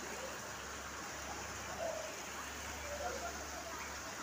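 Steady rush of running, splashing water at a swimming pool with a water-play structure, with faint distant voices over it.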